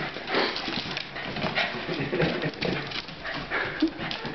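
Pembroke Welsh Corgi playing with inflated party balloons: an irregular run of short scuffling and squeaking sounds from the dog and the balloons.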